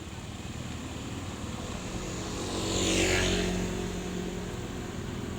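ATV engine running steadily, growing louder to a peak about three seconds in as it passes close by, with a rushing hiss at the peak, then easing off.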